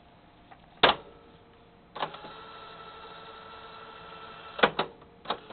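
Cassette deck piano keys on a Panasonic RX-5085 boombox clacking as they are pressed: a loud clack about a second in, another at about two seconds, after which the tape transport runs with a steady hum. Two quick clacks come just before the end as the stop/eject key is pressed, and another one follows shortly after.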